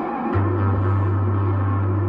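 Deep synth bass note, sampled from a Minimoog Model D plugin, starting about a third of a second in and holding steady. Under it runs a wavering mid-range synth layer of an ambient beat.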